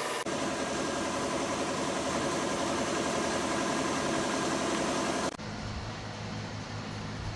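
Steady noise from a workshop power tool running. About five seconds in it cuts off suddenly to a lower, duller machine hum.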